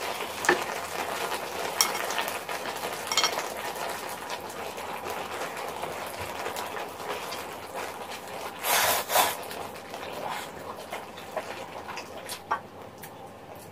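Spicy rabokki sauce simmering and sizzling in a hot electric pan, with wooden chopsticks clicking as ramen noodles are lifted. Two louder noodle slurps come about nine seconds in.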